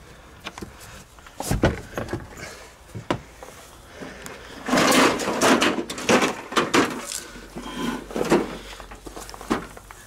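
Clunks, scrapes and rattles of a smashed microwave's dented sheet-metal casing being handled and shifted while a rope is knotted around it, with a few sharp knocks and a busier stretch of rattling around the middle.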